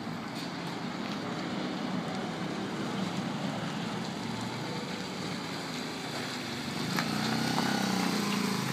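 A Mondial motorcycle's small single-cylinder engine running steadily as it tows a box trailer, getting louder and closer near the end.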